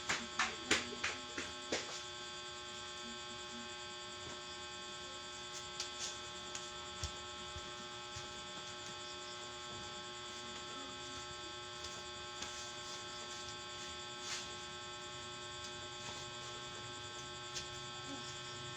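Steady electrical mains hum with many overtones. A quick run of about seven sharp clicks or taps sounds in the first two seconds, and a few single clicks follow later.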